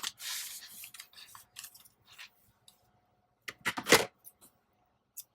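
Hands handling paper and craft fibers, with rustling at the start, scattered small clicks, and a quick cluster of sharp snips about three and a half seconds in.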